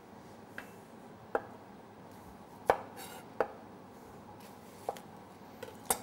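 Chef's knife cutting a whole onion on a plastic cutting board: about seven separate sharp knocks as the blade goes through and strikes the board, the loudest about halfway through.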